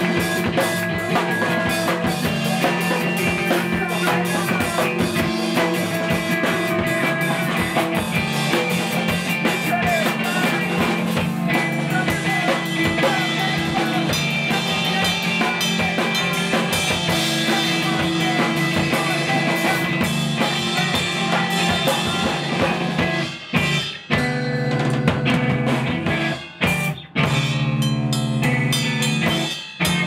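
Live emo/hardcore band playing loud: electric guitar and drum kit, with several abrupt stops and hits in the last several seconds.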